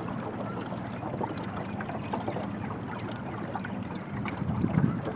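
Small boat under way: a steady wash of water and wind noise over a faint, even low motor hum, with scattered light knocks.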